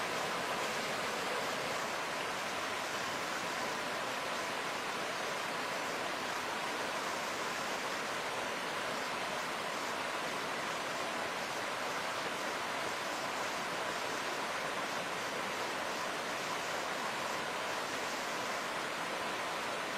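Muddy flash-flood water rushing over rocks and small rapids in a forest stream, a steady, unbroken rush.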